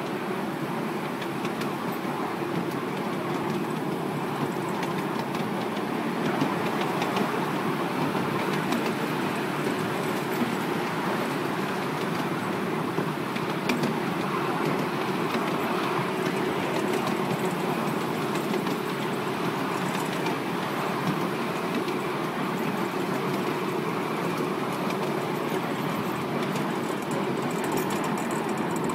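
Miniature ride-on railway train running steadily along its track, a continuous rumble of wheels on rails with a few sharp clicks.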